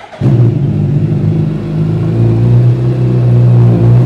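A Suzuki Hayabusa Gen 3's 1340 cc inline-four fires up about a quarter second in and runs at a steady idle through aftermarket copy Yoshimura exhausts.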